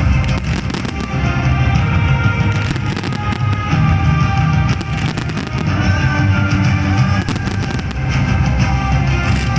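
Fireworks banging repeatedly over loud music.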